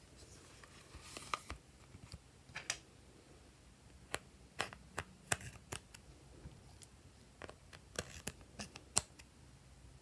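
Irregular light clicks and scrapes as a thin metal tool digs pressed eyeshadow out of a plastic palette's pans, with a short scratchy stretch about a second in.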